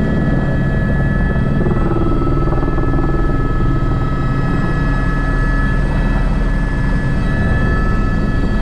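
Airbus H125 helicopter heard from inside the cockpit in flight: a steady low rotor and turbine drone with a constant high whine over it.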